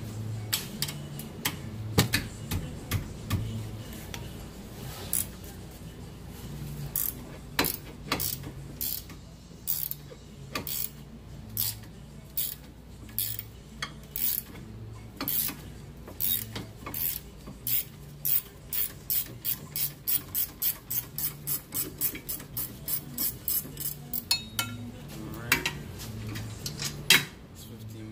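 A 15 mm ratcheting wrench clicking as it turns out the rear brake caliper bracket bolts: a long run of sharp metal clicks, sparse at first and then about two a second, with a few louder knocks.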